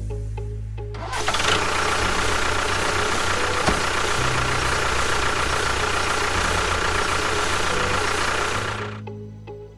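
An engine running steadily, a low rumble with a hiss over it. It grows louder about a second in and dies away near the end.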